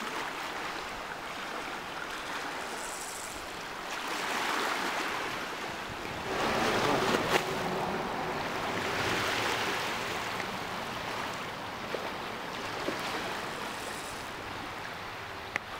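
Fast-flowing sea current rushing past, a steady wash of water that swells and eases, with a single sharp click about seven seconds in.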